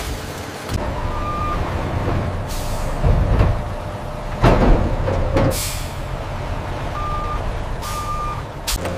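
A semi-truck backing up with its engine rumbling steadily. Its reversing alarm beeps once about a second in and twice near the end, and there are several sharp hisses of air from the brakes, the loudest about halfway through.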